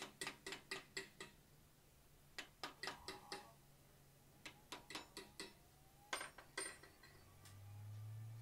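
Light hand-hammer taps on a small eye-socket punch held against the hot steel of a forged bear's head, about five taps a second in short runs with pauses, scalloping material into the eye. Two harder strikes come near the end.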